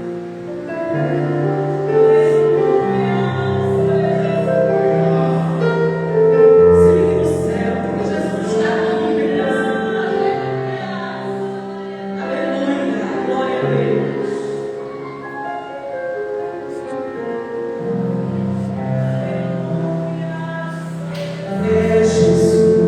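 Gospel-style worship music: singing over sustained chords and held bass notes.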